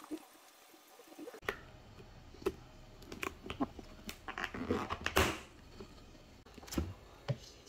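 Quiet scattered clicks and light taps of small objects being handled, with a short rush of noise about five seconds in.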